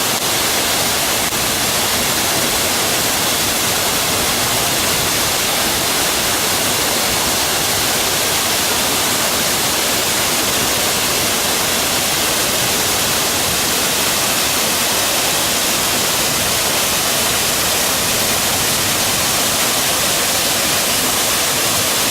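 Waterfall, a loud steady rush of falling water.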